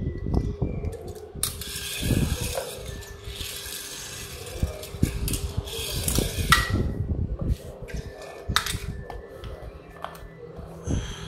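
Clicks, knocks and rattles of die-cast Tomica toy cars being handled and set down on a tile floor, with a longer scraping rattle for several seconds from about a second and a half in. A faint steady hum lies underneath.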